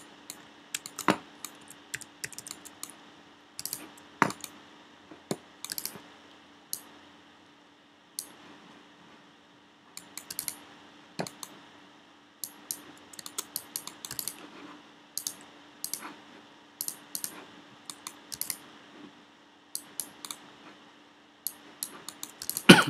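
Computer keyboard and mouse clicking in irregular, scattered runs, with a few louder knocks and the loudest one near the end, over a faint steady hum.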